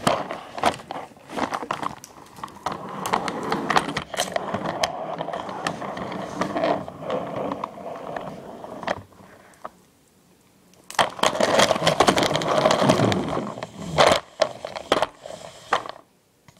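Scraping, rattling and clicking of a toy ride being moved along a homemade cardboard roller-coaster track, with a short lull just past halfway.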